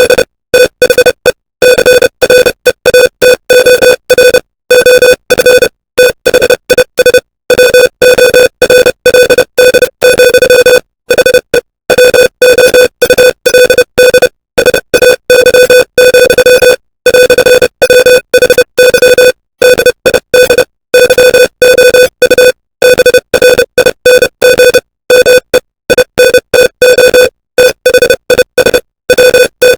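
Morse code sent as a single buzzy mid-pitched tone, keyed into short and long beeps with silent gaps between them at a steady sending pace.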